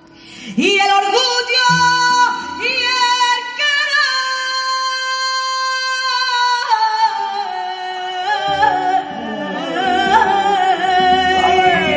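Female flamenco singer's cante de Levante: a long melismatic sung line with wavering held notes, entering about half a second in, holding one long note in the middle and then falling away in pitch. Flamenco guitar plays underneath.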